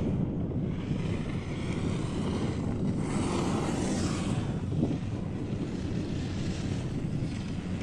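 Steady low rumble with wind buffeting the microphone, swelling into a brighter rush about three seconds in, typical of riding a chairlift in the open.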